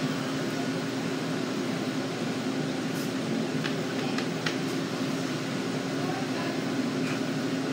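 Steady low machine hum with a held low tone, and a few faint clicks around the middle.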